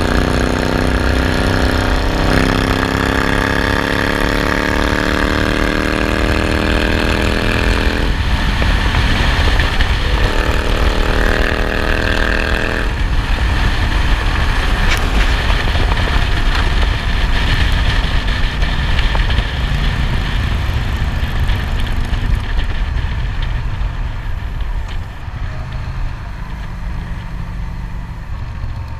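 A motorcycle engine heard from the bike itself while riding, with heavy wind rumble on the microphone. The engine note climbs in pitch under acceleration through the first several seconds, breaking at gear changes about two and eight seconds in. It climbs again until about thirteen seconds, then settles into a steady cruise in which wind noise dominates, and it eases off a little near the end.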